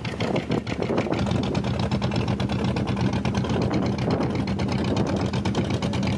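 Fishing boat engine running steadily with a rapid, even beat.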